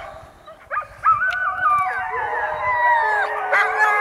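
Alaskan malamutes howling: after a short yelp, long wavering howls start about a second in and overlap to the end.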